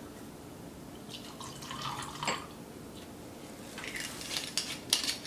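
Gin being poured into a glass of hailstones, with intermittent dripping and splashing and a couple of sharp clinks against the glass, the last one loudest.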